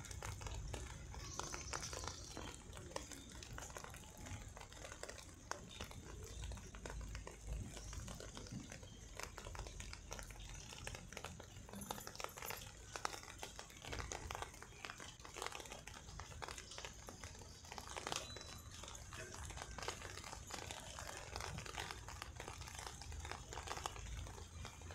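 Faint rustling and crackling of footsteps through wet grass, with many small irregular clicks and a low rumble of handheld phone handling noise.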